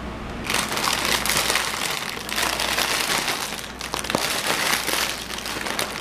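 Plastic liner bag inside a cereal box crinkling as it is pulled open by hand. A dense crackle begins about half a second in and goes on with a couple of short lulls.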